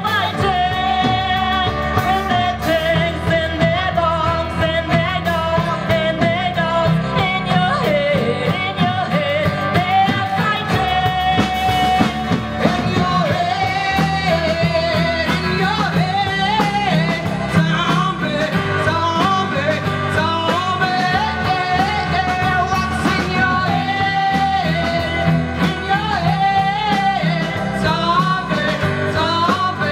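A live rock band playing a song, with women singing lead over acoustic guitars, another guitar and a drum kit.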